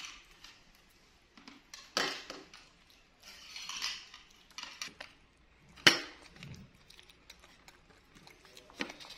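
Scattered clinks and knocks of dishes and cutlery at a meal, a few seconds apart, with short bits of rustling between them. One sharp clink about six seconds in is the loudest.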